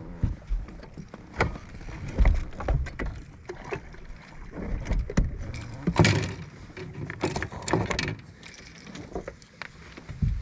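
A drifting bass boat: irregular thumps and knocks from footsteps and gear on its deck, with water slapping the hull and a few sharp clicks. The loudest knock comes about six seconds in.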